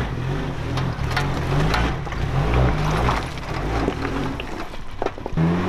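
A 4WD's engine revving up and down in uneven surges as the vehicle crawls over boulders, with occasional sharp knocks from the vehicle against rock.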